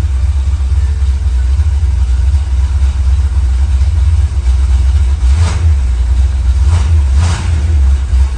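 1976 Corvette's new BluePrint crate V8 running on its very first start after a full rebuild, a loud steady low throb, with two brief louder bursts about five and seven seconds in.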